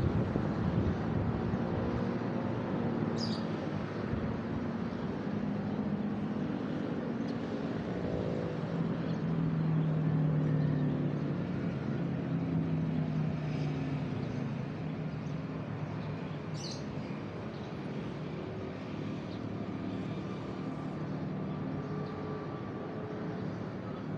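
Motor traffic passing on a road: a steady engine hum that swells toward the middle and then fades. A bird chirps briefly twice, once early and again past the middle.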